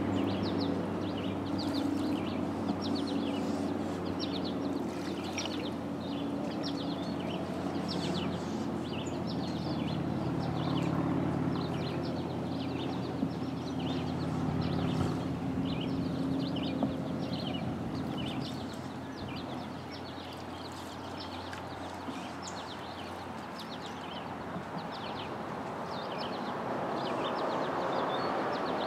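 Many small birds chirping from the lakeshore woods, quick short calls throughout, over a steady low rumble. Soft wash of water from the canoe's paddle strokes.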